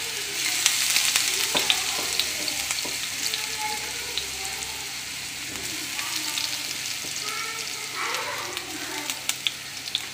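Chopped ginger and garlic with fennel seeds sizzling in hot oil in a nonstick kadai, with the sharp clicks of a spoon stirring and scraping against the pan, several close together near the end.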